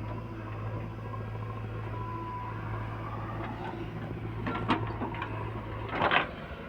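Diesel engine of heavy machinery running steadily, with a sharp clank near the middle and a louder short clatter about six seconds in, after which the engine hum drops away.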